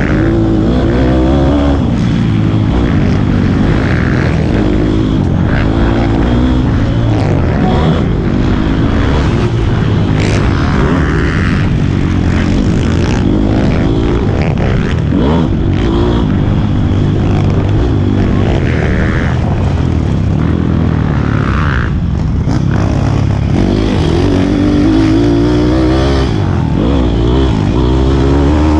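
Pit bike's small single-cylinder four-stroke engine at race pace, its pitch sweeping up and dropping back again and again with the throttle and gear changes.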